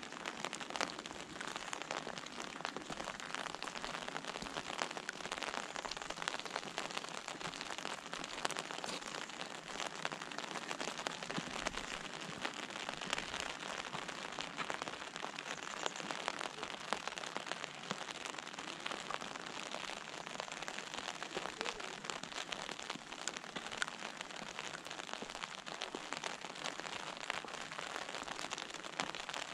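Gentle rain falling steadily on an umbrella: an even hiss dense with small, sharp drop ticks.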